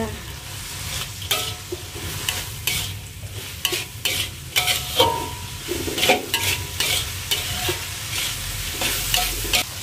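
Metal spatula scraping and clanking against a metal wok in quick irregular strokes while dried shrimp and chillies are stir-fried, over a steady sizzle; the seasoning is being stirred through.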